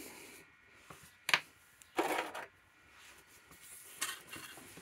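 Quiet handling noises of an old air filter element and a sheet of air filter foam on a workbench. There is a sharp tap a little over a second in and a short scraping rustle about two seconds in.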